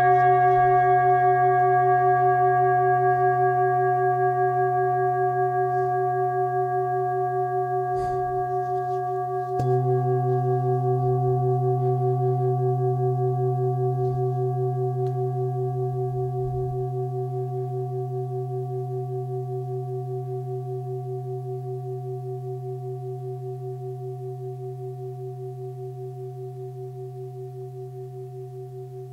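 A 25 cm hand-forged singing bowl tuned to C, about 130 Hz, ringing with a pulsing wobble and slowly dying away. It is struck again about ten seconds in, just after a light knock, and then rings on, fading.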